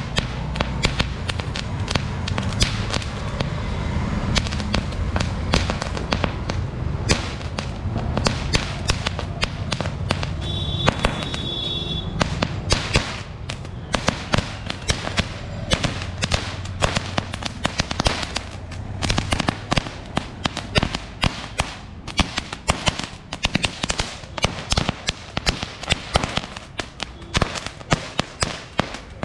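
A saravedi, a long string of small firecrackers, goes off in a fast, unbroken run of sharp cracks and pops. Toward the end the bangs come further apart and stand out more.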